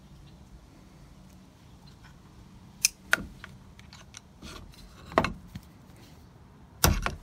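Light clicks and taps as a nail is fitted into a plastic magnetic nail holder and set on a wooden board, then near the end a claw hammer starts striking the nail, two quick sharp blows.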